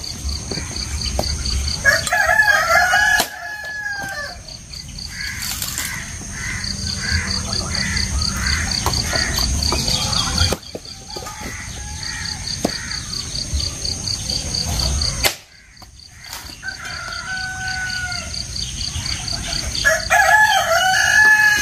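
A rooster crowing about three times, about two seconds in, again near the end and once shortly before. Between the crows there are fainter bird calls, over a steady, pulsing, high-pitched insect trill.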